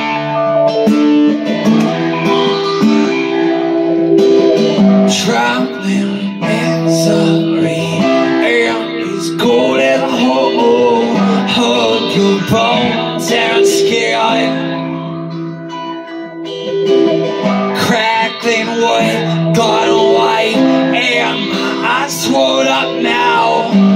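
Acoustic guitar strummed in steady chords, with a man's voice singing along at times.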